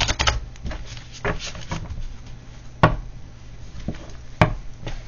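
A deck of oracle cards being shuffled and handled: a quick run of riffling clicks at the start, then a few separate taps, two of them sharp, about three and four and a half seconds in.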